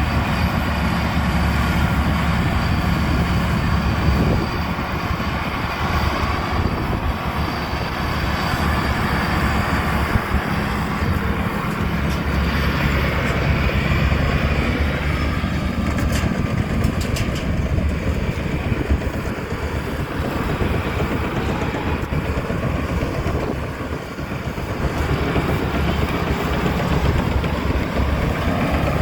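Tamco rice combine harvester with an Isuzu diesel engine running steadily under load as it harvests, with a few brief clatters about halfway through.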